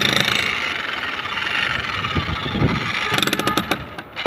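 Electric demolition hammer chiselling a concrete roof slab, a rapid hammering that runs in spells: briefly at the start, then a lull, then again from about three seconds in.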